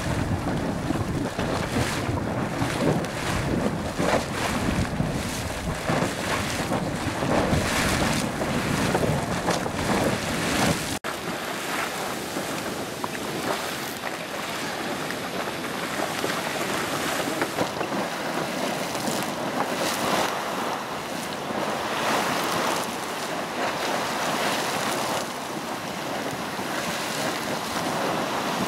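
Super Frying Pan Geyser, a fountain-type geyser, erupting: a continuous hissing splash of boiling water bursting from its vent. For the first ten seconds or so wind rumbles on the microphone, then a sudden cut leaves a steadier, brighter splashing hiss.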